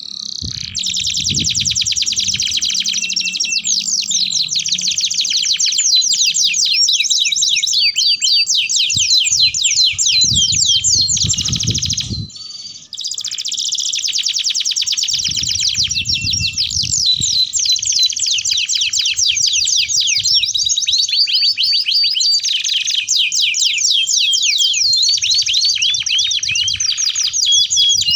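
Domestic canary singing: long, fast rolling trills and chirped phrases, high-pitched and nearly unbroken, with one short pause about halfway through.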